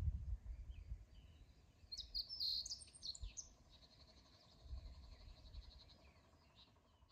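Wind gusting on the microphone as a low rumble, loudest at the start and again about five seconds in, with birds calling: a burst of chirps about two seconds in and a fine rapid trill after it. The sound fades out near the end.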